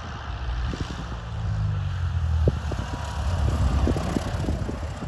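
Cessna 172's engine and propeller droning at low landing power as the plane flies low past, just above the runway before touchdown, the sound swelling toward the middle and easing near the end. Wind buffets the microphone throughout.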